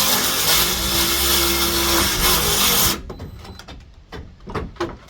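Power saw running as it cuts through a wooden deck board, then stopping abruptly about three seconds in, followed by a few knocks and clatter.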